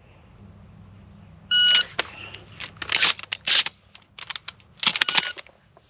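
A shot timer's start beep about a second and a half in. Then a quick series of sharp clacks as shells are pushed into a semi-automatic shotgun's magazine tube and the charging handle is worked to chamber a round. A second beep, the timer's 3.5-second par-time signal, sounds near the end.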